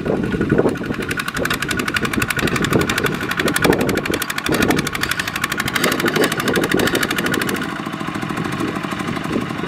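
Two-wheel walking tractor's single-cylinder diesel engine running steadily under load, with a rapid, even knock, as it drags a loaded rice trailer through deep mud.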